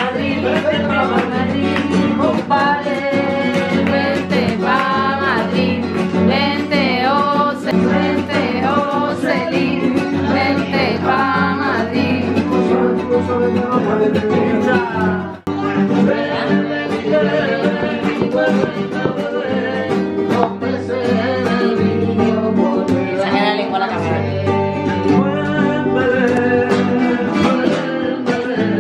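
A man singing flamenco over strummed Spanish guitar. The music drops out for a moment about halfway through, then carries on.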